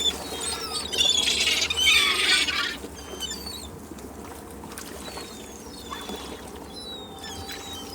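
Gulls calling over a beach: many short, high cries that slide downward, with a dense, loud cluster of calls between about one and three seconds in, over a steady low background rumble.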